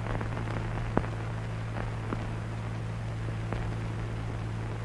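Steady low hum and hiss of an old film soundtrack, with one sharp click about a second in as the hammer of the firing-mechanism model is cocked and the sear snaps into its notch. A few fainter ticks follow.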